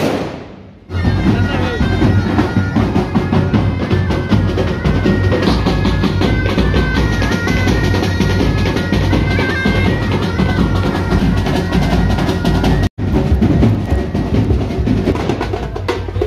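Pipe band playing: bagpipes carry a stepping melody over bass drums and drum rolls. The music comes in about a second in and cuts out for an instant near the end.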